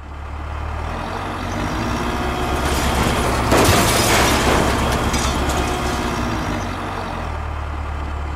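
Tractor engine running steadily under load, with a loud crash of falling stone and rubble about three and a half seconds in as a stone house collapses.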